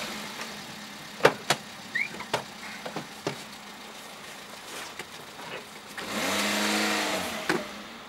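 A car door unlatching and opening with two sharp clicks, a few knocks as a wheeled suitcase is lifted out, then a small car's engine swelling as the car pulls away.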